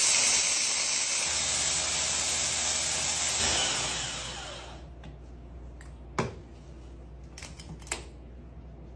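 Small electric blender whirring as it grinds dry rice into flour. It runs for about four seconds, then winds down and stops. A couple of light knocks follow.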